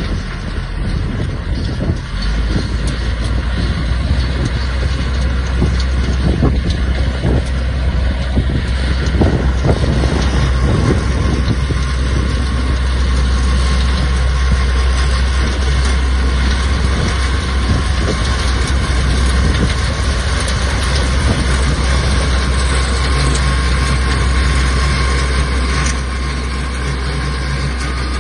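Tractor-powered beater wagon running, its PTO-driven horizontal beaters and chain elevator throwing out mulch: a steady low engine drone that sets in about two seconds in, with dense rattling and knocking through the first half.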